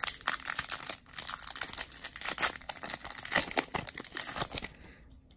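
Foil Pokémon booster-pack wrapper crinkling and crackling as it is torn open by hand, a dense rustle that stops near the end.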